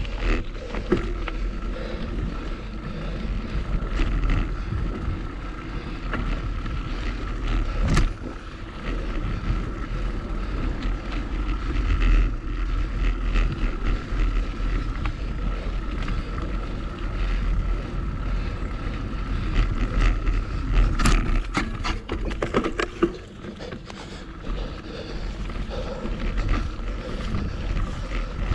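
Mountain bike riding on dirt singletrack: wind buffeting the action-camera microphone over the rattle and crunch of the bike and its tyres. Sharp knocks over bumps come about eight seconds in and again in a cluster around twenty-one to twenty-three seconds.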